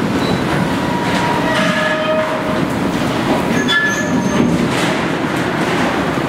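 NYC Subway garbage work train (Budd R32 cars hauling R58 garbage flatcars) rolling along a station track with a steady running noise, and brief high metallic squeals about two and four seconds in.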